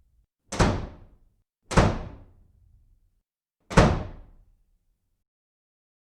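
Three loud slams, each dying away within about a second, with complete silence between them.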